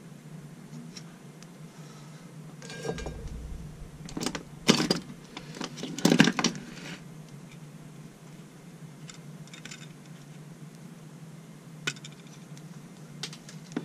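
Workbench handling clatter: tools and a die-cast aluminium pedal enclosure being picked up, set down and turned over. The loudest knocks come around five and six seconds in, with a few light clicks near the end, over a faint steady hum.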